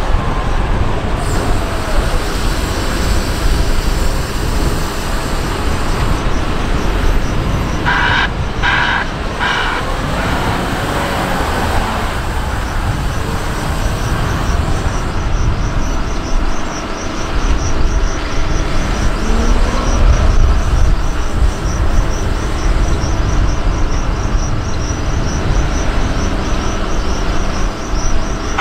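Hidromek HMK 640 wheel loader's diesel engine running and revving as the machine drives with a loaded bucket, loudest in the second half. About eight seconds in, three short alarm beeps sound.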